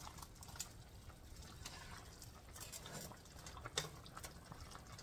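A wooden spoon stirring chunks of pork and chicken through braising liquid in a pot, giving faint wet sloshing with a few soft spoon knocks.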